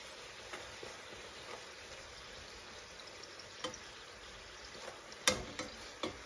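Puri dough frying in hot oil in a pan, a steady soft sizzle. A few sharp clicks of metal utensils against the pan, the loudest about five seconds in.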